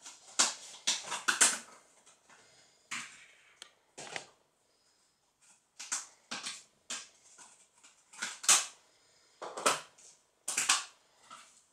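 Irregular short bursts of rustling and crackling, a dozen or so, with near-quiet gaps between them.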